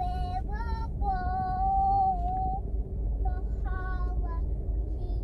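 A child singing in a high voice, short notes and one long held note, over the steady low rumble of the car's engine and road noise heard inside the cabin.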